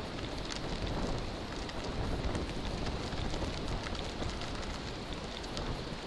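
Wind rumbling on the microphone over a steady crackle of bicycle tyres rolling on packed sand scattered with shells, with small clicks dotted throughout.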